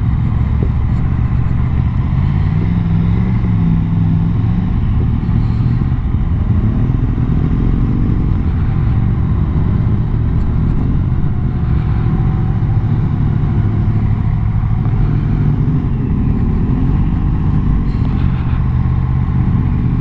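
Motorcycle engine running at low road speed, its pitch rising and falling gently several times as the bike pulls away and eases off in slow traffic.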